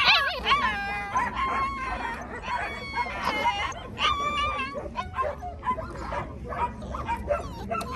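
A litter of five-week-old puppies whining and yelping, high thin cries coming one after another.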